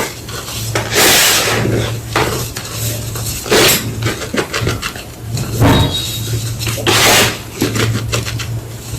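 A homemade gym chalk block being crunched and crumbled, in several loud, short crackling crunches a second or two apart, over a steady low hum.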